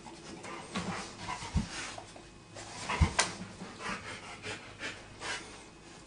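A dog panting in irregular short breaths, with a couple of dull thumps as it shifts and rolls about on the floor of its pen.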